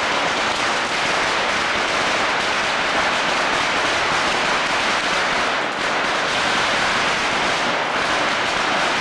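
Dense firecrackers and fireworks going off all around, merging into one steady crackling din with no single bang standing out.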